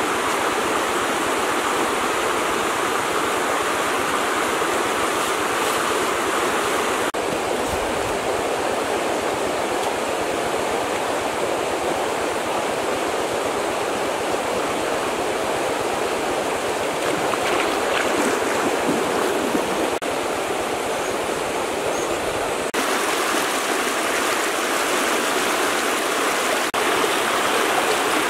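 Steady rush of running stream water, with its texture shifting slightly a few times.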